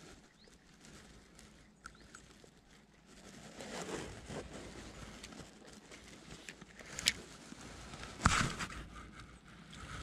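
Hands handling a spinning rod and reel: light rustling and small clicks, with a sharp click about seven seconds in and a louder knock just after eight seconds.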